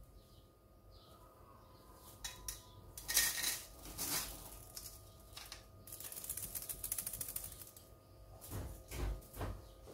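Crushed ice being tipped out of a kitchen towel into a bowl: a few knocks, then a rattling patter of ice pieces for about two seconds, and more knocks near the end.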